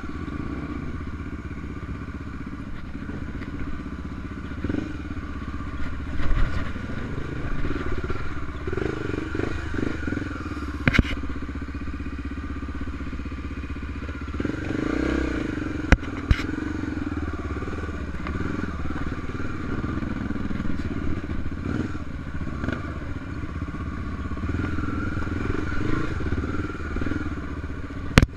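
Honda Tornado 250 enduro motorcycle's single-cylinder four-stroke engine running steadily while riding off-road, with a few sharp knocks, about a third of the way in, around halfway, and near the end.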